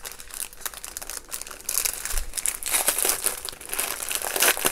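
Clear plastic packaging bags crinkling as hands handle and pull them open, the crackling growing louder about halfway through.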